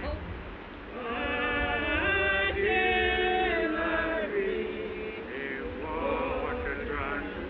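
Voices singing a slow chant in long held notes, with some bending, gliding notes near the end, over a low rumble.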